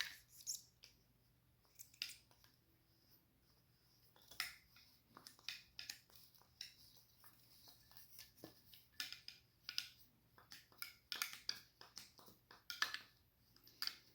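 Faint, irregular scraping and small clicks of a paper towel being pushed and worked into disassembled AR-15 parts during cleaning.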